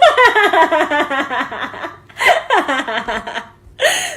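A baby laughing in runs of quick, high-pitched laughs: a long run, then a shorter one about two seconds in, and a brief burst near the end.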